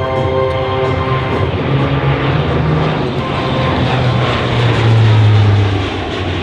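A Coast Guard C-27J Spartan's twin Rolls-Royce AE 2100 turboprops and six-blade propellers flying past. It is a continuous roar with a low hum that grows loudest about five seconds in, then drops in pitch and eases as the aircraft passes.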